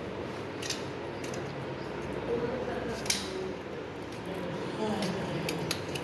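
Scattered sharp metallic clicks and snips of small tools and lock parts being handled, the loudest about three seconds in and a quick cluster near the end, over faint background voices.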